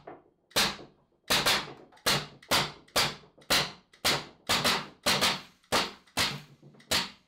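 Home-built compressed-air Nerf gun firing single shots in quick succession: about fourteen sharp air-blast cracks, roughly two a second at uneven spacing, each with a short fading hiss.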